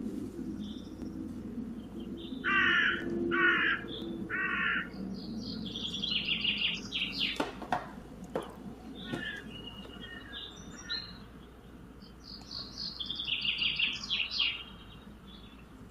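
Birds calling: three short, harsh caw-like calls, then two bursts of high chirping, with a couple of sharp clicks near the middle.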